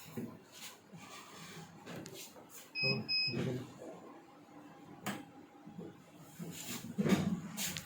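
T-shirt printing machine giving two short electronic beeps about three seconds in, amid knocks and clatter of handling; a second loud knocking stretch comes near the end.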